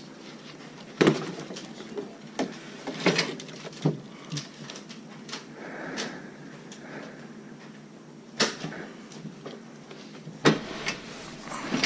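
Scattered sharp knocks and clicks, about six spread out over several seconds, the loudest about a second in and again near the end: foam-dart Nerf blasters firing and darts hitting things during a Nerf fight.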